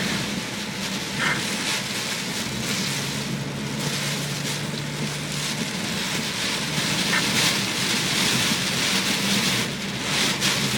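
River in typhoon flood, its floodwater rushing steadily with a constant roar-free hiss of water and rain, close to overtopping the roadside. A faint steady low hum runs underneath.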